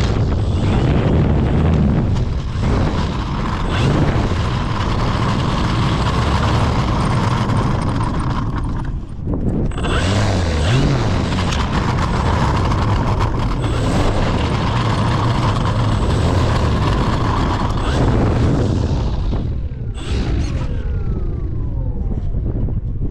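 Strong wind buffeting the microphone with a rumble, over the whine of an electric model airplane's motor and propeller. The sound drops out briefly about nine seconds in, and near the end the whine falls in pitch.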